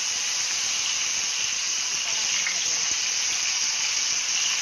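Egg-dipped eggplant omelette (tortang talong) frying in hot oil in a wok: a steady sizzle.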